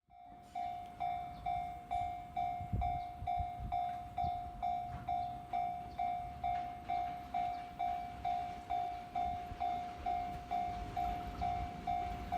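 Japanese railway level-crossing warning bell ringing, a single pitched electronic ding about twice a second, each ding fading quickly. A low rumble grows under it near the end.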